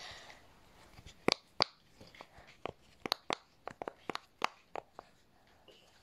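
Bubbles of a square rainbow silicone pop-it fidget toy being pressed in one after another: about a dozen sharp pops, irregularly spaced, starting about a second in and stopping near the end.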